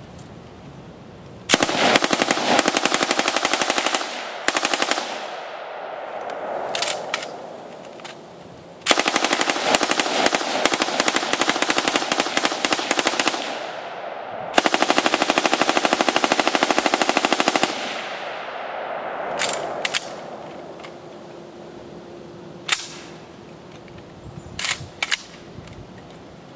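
Belt-fed 5.56 mm M249 SAW light machine gun firing full-auto in long bursts of several seconds, with short bursts of a few rounds between and after them. Each long burst trails off in a short echo.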